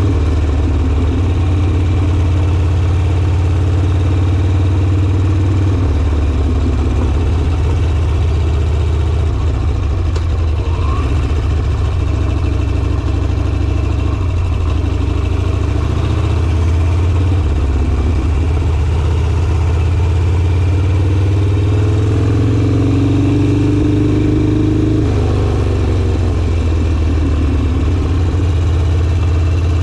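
Harley-Davidson Sportster's air-cooled V-twin running under way, its note shifting a few times as the throttle opens and closes. Near the end the pitch rises, then drops off suddenly as the throttle is closed or the gear changes.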